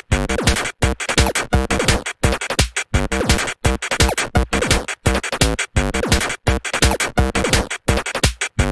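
Electronic music with a drum-machine beat and synthesizer, broken by short gaps every half second to a second.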